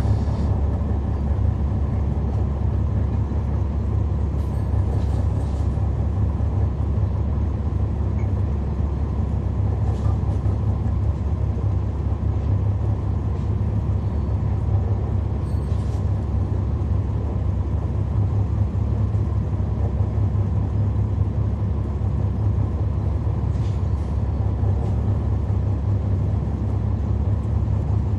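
Cummins ISL9 inline-six diesel of a NABI 40-foot transit bus running steadily, heard from inside the bus as a deep, even drone. A few short hisses come through at intervals.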